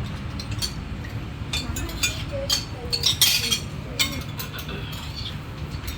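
Spoons and cutlery clinking against plates and bowls during a meal: a run of light, sharp clinks, thickest in the middle, over a steady low hum.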